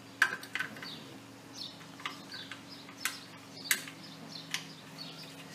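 Birds chirping in short falling calls, with about seven sharp, irregularly spaced clicks from a hand tool working the motorcycle's seat fastening, over a faint steady hum.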